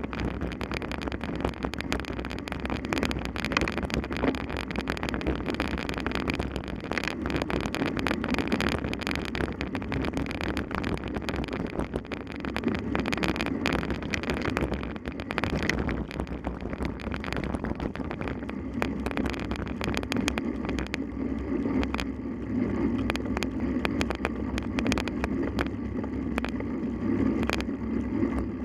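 Bicycle ridden fast over rough ground during a mountain-bike marathon: steady rumble of tyres and wind on the microphone, with constant rattling and knocks from the bumps.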